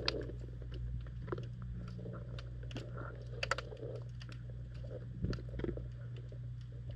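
Underwater sound picked up by a GoPro in its waterproof housing on the seabed: a steady low hum with scattered sharp clicks and crackles. A few louder knocks come around the middle and about five seconds in.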